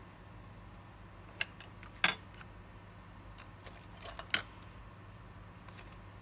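Small metal watchmaker's tools clicking and tapping against the bench, a handful of sharp separate clicks. The loudest comes about two seconds in and another just after four seconds, over a steady low hum.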